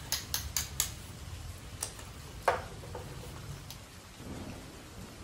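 Steady rain with a low rumble underneath. Four sharp clicks come in quick succession in the first second, then a few single clicks, the loudest about two and a half seconds in.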